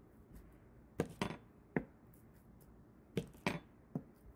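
A metal fork dipped in paint stamped onto paper laid on a wooden table: about six sharp taps at uneven intervals.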